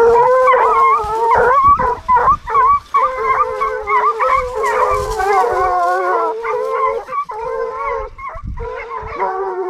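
Several Ariégeois hounds baying together in overlapping long, wavering cries: the pack giving tongue as it runs a fresh scent trail.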